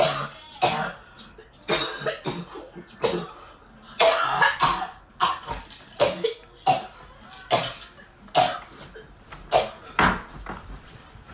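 A woman coughing hard and repeatedly, choking on a piece of ice: about fifteen harsh coughs, one or two a second.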